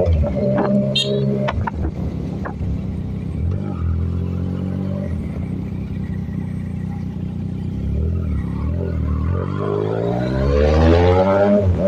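Yamaha MT-09 motorcycle's inline three-cylinder engine under way, running at low revs while cruising, then revving up again about ten seconds in. The pitch drops sharply near the end as it shifts up.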